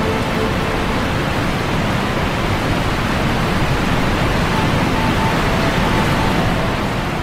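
Rushing water of a river waterfall cascade, a steady, even wash of noise.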